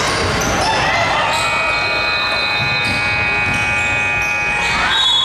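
Gym scoreboard horn sounding one long, steady buzz for about three and a half seconds, starting about a second in, over the noise of a basketball game: a bouncing ball and voices.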